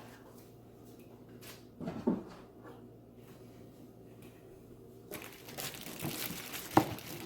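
Unpacking noises: a soft knock about two seconds in, then crinkling and rustling of the turntable's packaging from about five seconds, with a couple of sharp knocks near the end as the turntable is handled.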